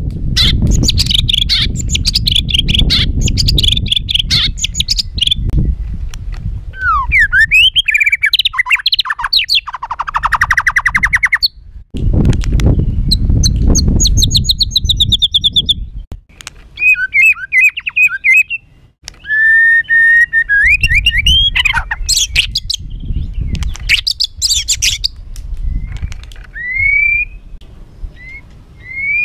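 White-rumped shama (murai batu) singing a harsh, agitated song: a run of varied phrases of rapid trills, rattling notes, sweeps and short whistles, broken by brief pauses. A low rumble runs underneath for parts of it.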